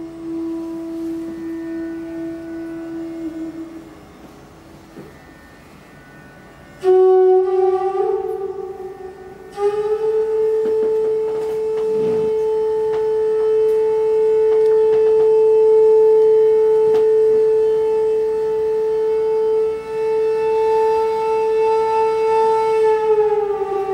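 Bansuri (Indian bamboo flute) playing slow, long held notes: a low note fades away about three and a half seconds in, and after a short quiet gap a new note enters sharply, steps up, and is held for about thirteen seconds before sliding down near the end.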